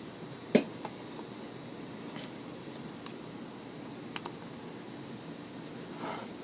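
Small metal lock parts being handled during disassembly: a sharp click about half a second in, then a few faint ticks and clinks, over a steady fan-like hiss.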